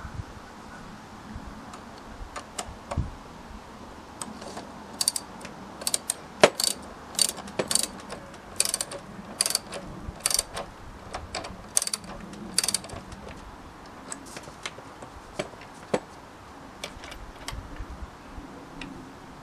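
Ratchet spanner clicking as a screw is driven in, in short runs of rapid clicks on each back-stroke; the clicks are sparse at first, come thick through the middle, and thin out near the end.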